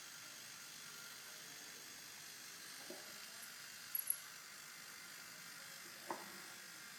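Faint steady hiss with two quick, sharp clicks about four seconds in.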